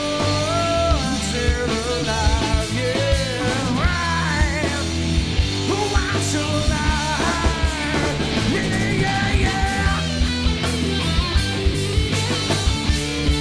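Studio recording of a rock band playing a song: a male singer over electric guitars, bass guitar and a steady drum beat, with the guitars coming forward near the end.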